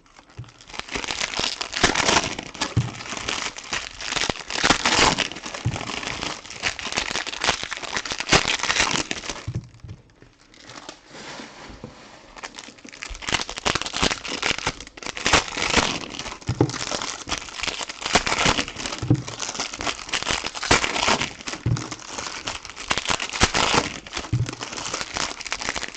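Plastic and foil wrappers of trading-card packs and box wrap crinkling and tearing as they are opened and handled, with a quieter lull about ten seconds in.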